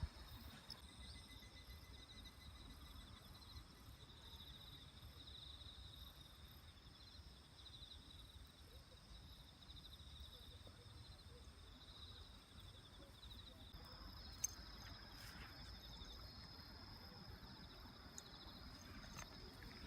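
Faint, steady insect trilling, with a second, higher trill joining about two-thirds of the way through, and a few faint clicks.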